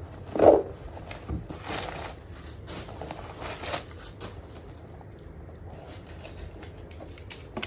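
A short loud sound about half a second in, then two brief rustles as crumpled packing stuffing is pulled out of a new handbag, with light handling noise between them.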